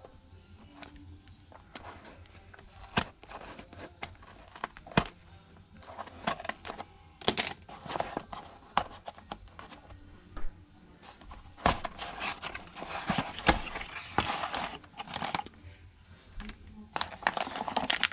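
A cardboard shipping box being opened by hand: packing tape peeled and torn away, cardboard flaps scraping and creasing, and plastic packing crinkling. Scattered sharp knocks and clicks of the box being handled on the bench, with longer stretches of rustling about a third of the way in and again past the middle.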